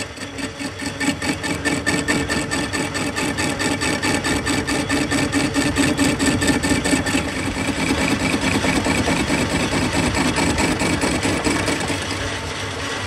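Metal lathe running, its cutting tool working the edge of a spinning steel chaff cutter rotor hub: a steady machine hum with a fast, even pulsing. The hum fades about halfway through, and the sound drops a little near the end.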